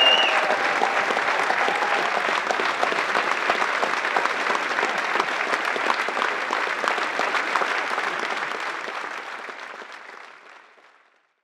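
Concert hall audience applauding, a dense steady clapping that fades out over the last few seconds.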